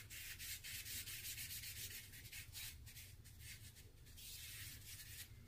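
Charcoal pencil rubbing and scratching on drawing paper in quick back-and-forth shading strokes, with short pauses between runs.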